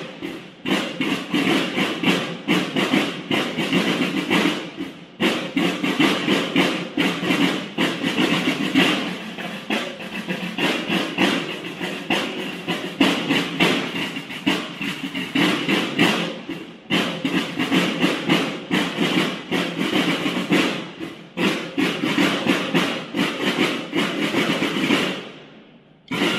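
Snare drums of a Mexican banda de guerra playing a fast, dense march cadence, with short breaks about five and seventeen seconds in, stopping just before the end.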